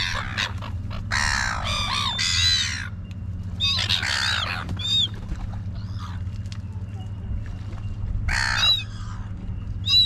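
Seagulls squawking in harsh calls, in three bouts: about a second in, around four seconds, and again near the end, as they squabble over thrown pilchards.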